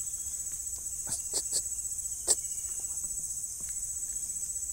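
Steady high-pitched insect chorus, a fast pulsing trill. A few soft knocks just over a second in, then one sharp snap a little after two seconds, the loudest sound.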